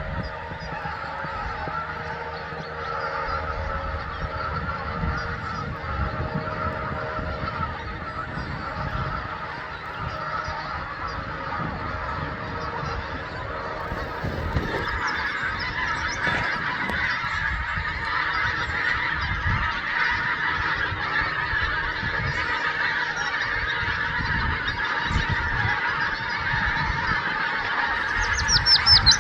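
A flock of geese honking continuously, many calls overlapping, growing a little louder about halfway through. Near the end a small bird's high, falling chirps come in.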